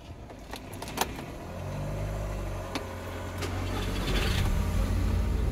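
Audi TT 8J's 2.0 TFSI (BWA) turbocharged four-cylinder petrol engine being started: a sharp key click about a second in, a steady low hum, then a brief burst of starter cranking and the engine catching and settling into idle over the last second or so.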